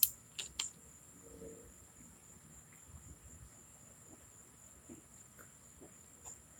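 A few faint clicks as a plastic soda bottle is handled, then faint, irregular swallowing as someone drinks from it.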